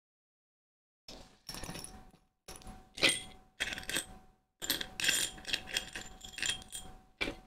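Small metal objects clinking and jingling together as they are handled, in several short bursts starting about a second in.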